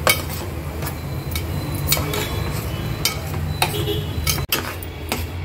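Metal spatula stirring and scraping semolina roasting in ghee in a pan, knocking against the pan about once a second, over a steady low hum.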